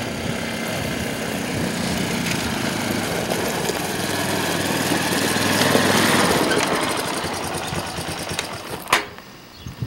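ATV (four-wheeler) engine running as it is ridden up close, loudest about six seconds in. Near the end the engine sound drops away and there is a sharp knock.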